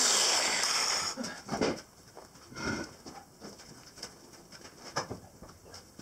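Angle grinder cutting through the centre of a sprayer wheel with a loud, hissing whine that cuts off about a second in. After that come a few dull knocks and clunks from handling the tool and the wheel.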